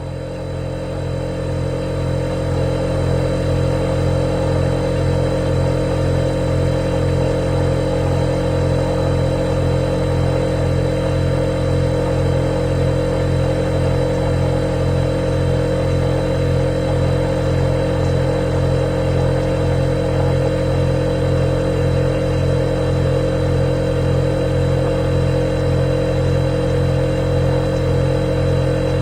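Refrigerator compressor running with a steady low hum that pulses slightly, plus a faint high-pitched whine. It swells up over the first couple of seconds, then holds level.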